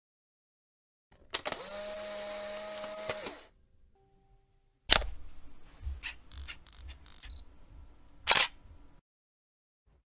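Camera sounds. A shutter click is followed by a steady mechanical whir lasting about two seconds. About five seconds in comes another loud click, then small clicks and rattles, and one more click about eight seconds in.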